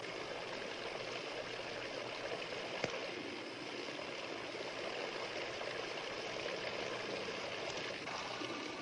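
Water streams of a Kelvin water-drop generator falling into their catch pails, a steady splashing hiss. A single sharp click about three seconds in.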